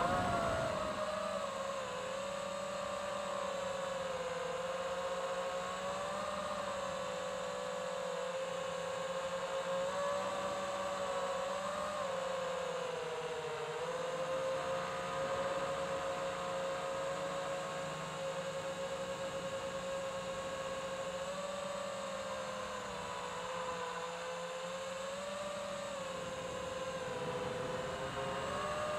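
FPV quadcopter's brushless motors and propellers whining steadily at cruising throttle, the pitch wavering gently up and down as the throttle is eased and added.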